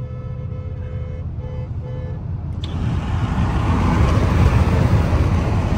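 Road and engine rumble heard from inside a moving car on a highway, with a steady held tone in the first two seconds. About two and a half seconds in, a loud rush of wind and tyre noise comes in suddenly and stays to the end.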